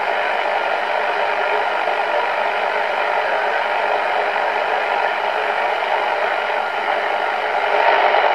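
BC-348-N valve aircraft receiver putting out steady static and band noise from its speaker, with no station heard. The noise grows slightly louder near the end.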